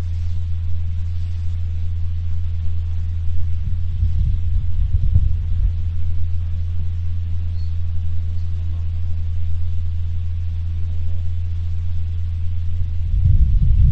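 Steady low electrical hum through the sound system, with muffled low rumbles about four seconds in and again near the end.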